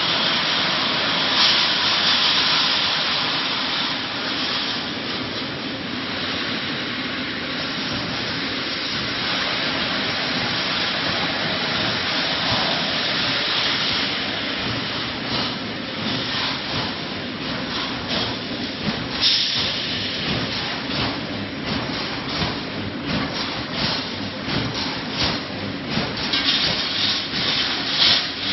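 Reinforcing mesh welding machine for 5–12 mm bar running: a steady hissing noise, then from about halfway on a fast, uneven clatter of sharp clicks and knocks that grows denser near the end.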